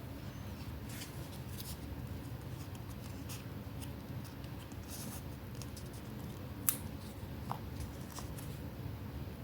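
Paper being handled: scattered soft paper rustles and small clicks, with one sharper click about two-thirds of the way in, over a steady low hum.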